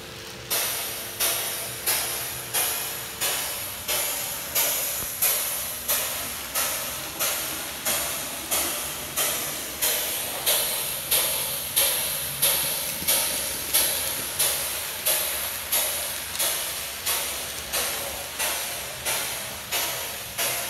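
Steam-locomotive exhaust chuffing in an even beat, about three chuffs every two seconds, each a sharp hiss that fades away, as from a model train's steam sound effect. A two-note steam whistle sounds under the chuffs for the first three seconds.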